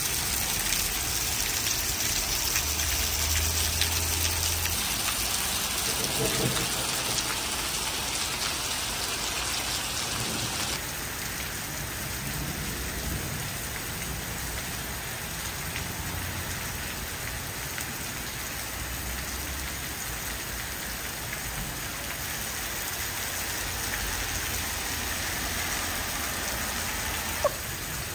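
Heavy rain pouring onto wet pavement, a steady hiss of splashing drops that turns a little quieter about eleven seconds in.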